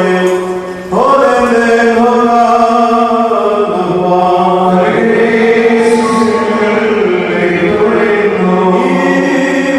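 A man's voice chanting a liturgical prayer in long held notes, sung into a microphone. A short break comes just before a new phrase starts with a rising note about a second in.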